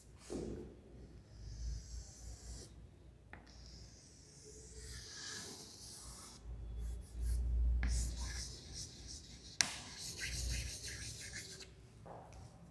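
Chalk scratching and rubbing across a blackboard in a series of strokes separated by short pauses, with one sharp click about two-thirds of the way through.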